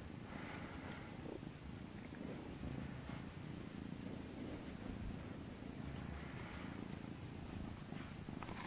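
Norwegian Forest Cat purring, a steady low rumble.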